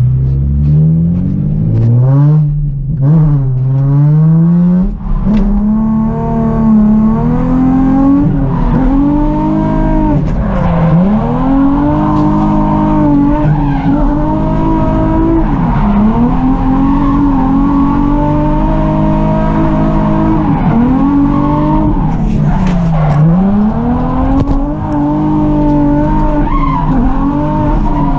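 Nissan 350Z's 3.5-litre V6 revving hard through a drift run. The revs climb over the first few seconds, then are held high, dipping sharply and recovering four or five times as the throttle is worked.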